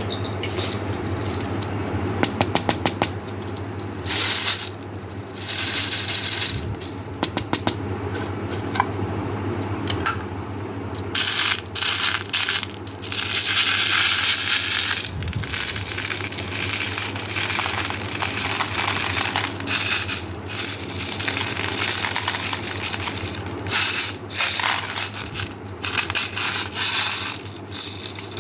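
Small hard-shelled candies rattling and clattering in quick clusters of clicks, as if poured into a container, over a steady low hum.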